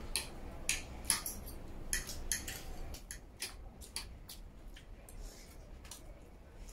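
Metal forks and spoons clinking and scraping against a steel tray and a plate of food: light clicks at irregular intervals, a little sparser and softer in the second half.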